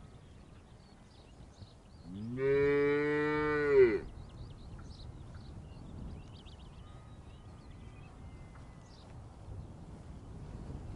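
A cow gives one long moo of about two seconds, rising in pitch at the start and swelling louder just before it stops.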